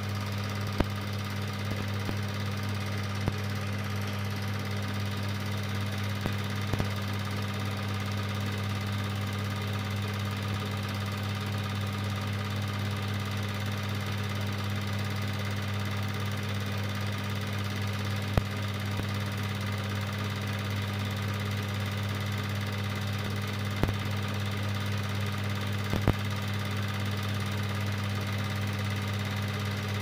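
Cine film projector running: a steady motor hum with a few sharp clicks scattered through it.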